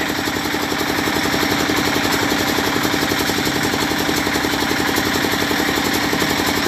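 A small engine running at a steady idle, with a fast, even pulsing beat and a steady hum.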